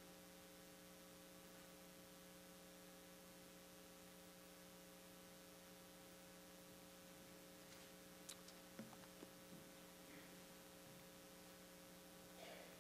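Near silence with a steady electrical mains hum from the sound system, and a few faint clicks about two thirds of the way through.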